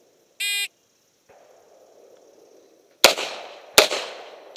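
An electronic shot timer beeps once, briefly. About two and a half seconds later a backup-gun revolver fires two shots roughly three quarters of a second apart, each sharp crack trailing off.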